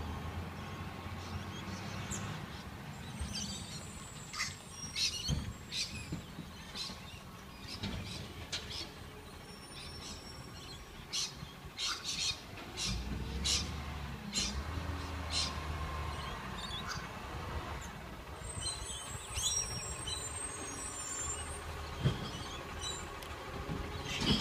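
Small birds chirping in quick repeated calls over the steady low rumble of a recycling truck's engine, which swells for a few seconds around the middle as the truck comes closer.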